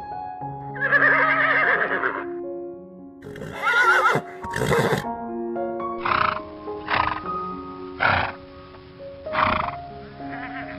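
Animal calls over background music: a drawn-out call about a second in, two loud calls around four to five seconds, then a run of short cries roughly once a second.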